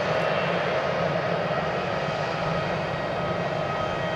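Jet engines of a Japan Airlines Boeing 777-200ER running low as the airliner taxis after landing: a steady rumble and hiss with a thin, steady whine that grows a little stronger near the end.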